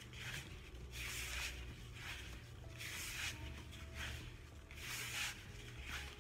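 Hands mixing dry bath bomb powder, a rubbing swish about once a second, over soft background music with a low bass line.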